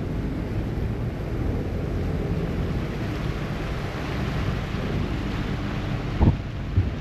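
Steady low rumble of a harbour ferry under way, its engine and the water along the hull, with wind buffeting the microphone. Two brief low thumps come near the end.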